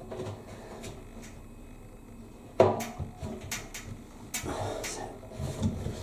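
A plastic drum paddle being pushed and clicked into place inside a washing machine's steel drum: a sharp knock about two and a half seconds in, then a few lighter clicks and some rubbing.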